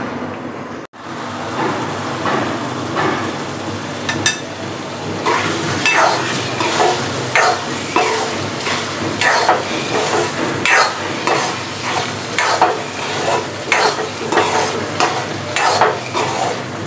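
Thick carrot halwa sizzling in a stainless steel kadhai over a gas flame, with its milk almost all cooked away. From about five seconds in, a steel spoon stirs it, scraping against the pan in repeated strokes about one to two a second.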